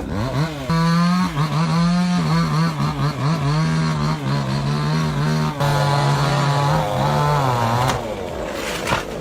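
Chainsaw revving up to full throttle just after the start and running at high speed, its pitch dipping and wavering, then dropping away about eight seconds in.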